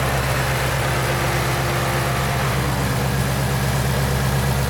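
Ford Shelby GT350's 5.2-litre flat-plane-crank V8 idling steadily, heard close up from the open engine bay.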